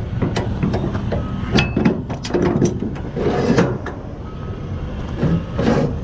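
Metal clanks and knocks of strap hardware being worked by hand on a flatbed trailer's aluminum side rail, in irregular bunches, over a steady low engine rumble.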